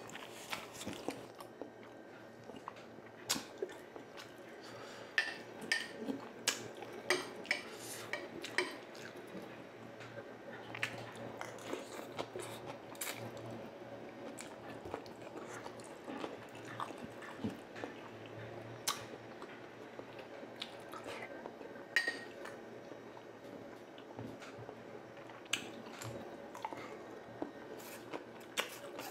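Close-miked mukbang eating sounds: a man chewing and biting battered deep-fried eggs (kwek-kwek and tokneneng), with a scatter of small sharp clicks and taps from the mouth, skewer and wooden board.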